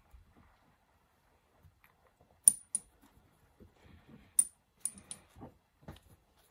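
Sharp metallic clicks and clinks, each with a brief high ring, as the steel parts of a small Emco rotary table are handled: two close together about two and a half seconds in, three more a couple of seconds later, then a few softer knocks.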